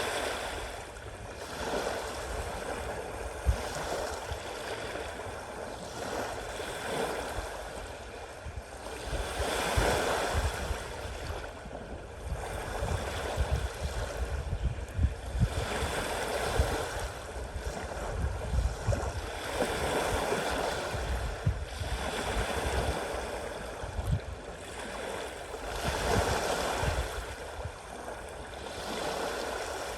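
Sea waves breaking and washing in, surging about every three to four seconds over a steady rush of water, with short low thumps underneath.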